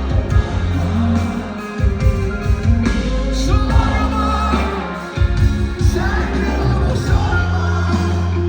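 Pop-rock band music with singing, a heavy steady bass line under a dense mix.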